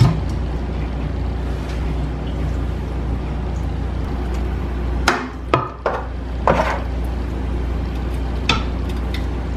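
A few sharp knocks and clatters of a metal pot and utensils being handled, several about halfway through and one more near the end, over a steady low hum.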